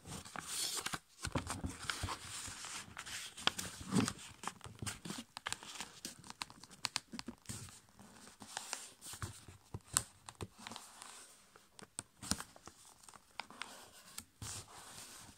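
A5 copy paper being folded and creased by hand against a table: crinkling rustles and scratchy scrapes as fingers press and run along the fold, with many sharp little clicks throughout.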